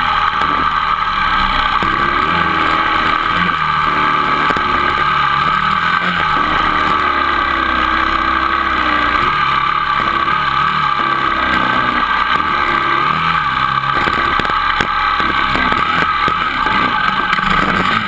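Dirt bike engine running under way on a gravel road, its pitch rising and falling with the throttle, with frequent knocks from the bike bouncing over the gravel.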